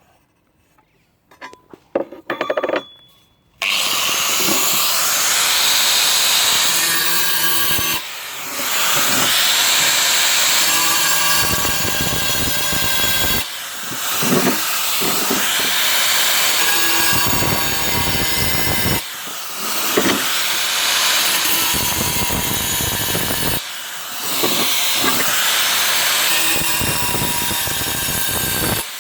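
Makita angle grinder cutting a round drain hole in a tile: a few handling clicks, then from about three and a half seconds in the grinder cuts loudly and steadily, the noise dropping briefly about every five seconds.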